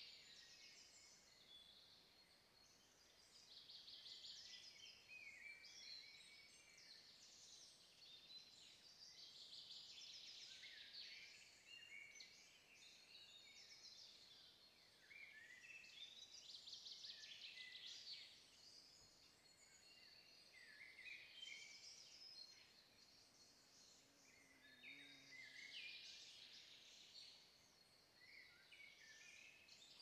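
Faint woodland birdsong: songbirds singing high, quick trills and chirps, phrase after phrase with short lulls between, the phrases sometimes overlapping.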